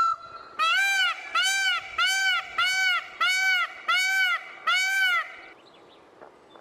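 Indian peafowl (peacock) calling: one held call, then a rapid series of about seven short honking calls, about one and a half a second.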